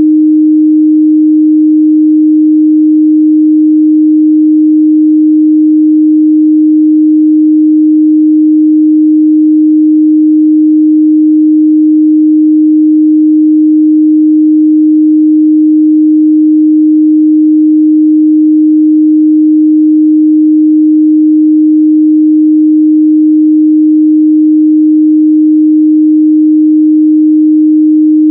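Pure 308 Hz sine-wave test tone, a single steady low-mid hum held at a constant, loud level with no change in pitch.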